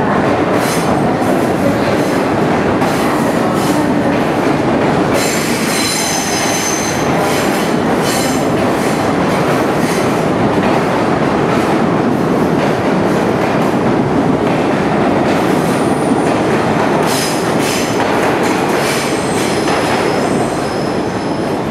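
R62 subway train arriving, wheels and cars rumbling steadily over the rails. High-pitched wheel squeal rises about five seconds in and again near the end, typical of steel wheels on a curve.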